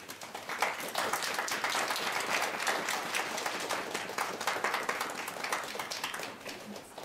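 A group applauding, many hands clapping together, dying away near the end.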